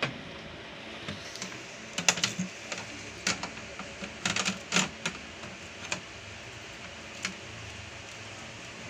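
Scattered clicks and light knocks as a DVR's metal case is handled and set down on a glass counter, bunched about two to five seconds in, with one or two lone clicks later.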